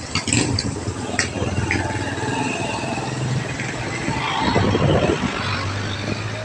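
Motor vehicle engine running close by amid street traffic noise, a steady low hum that swells louder about four to five seconds in.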